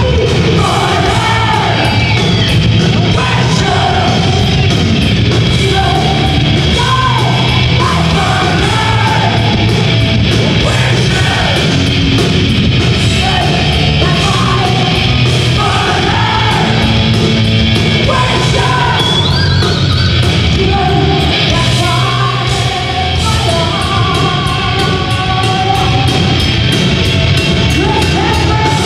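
Heavy metal band playing live: a woman sings and yells over distorted electric guitars and a drum kit.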